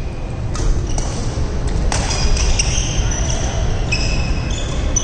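Badminton rally: a couple of sharp racket strikes on the shuttlecock, then sneakers squeaking on the wooden court floor, over a steady low rumble.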